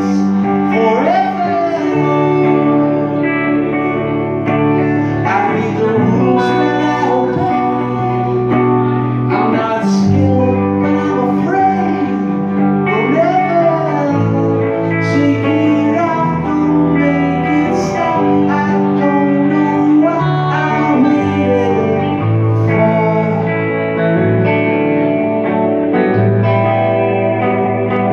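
A live band performing a song: a man singing over electric guitar, with a second guitar and a bass part holding long low notes that change every second or two.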